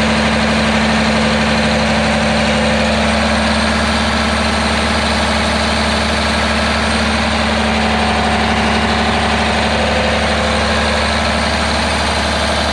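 Freshly rebuilt John Deere 6090 9.0 L six-cylinder diesel engine of a bulldozer running steadily, heard close up at the open engine bay.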